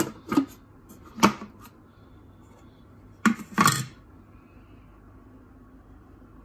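Sharp plastic knocks and clicks as the lid is fitted and locked onto a Thermomix TM5 mixing bowl, in several separate strokes over the first four seconds, the last a short clatter; then only a low steady background.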